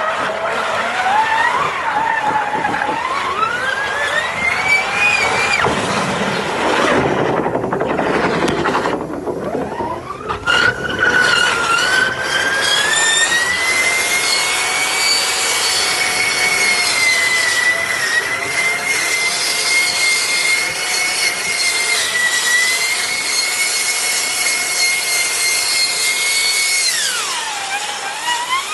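A motor's high-pitched whine sliding up and down in pitch, with a rough, noisy stretch in the first third. It then climbs and holds a steady high pitch for about twelve seconds, dips sharply near the end and rises again.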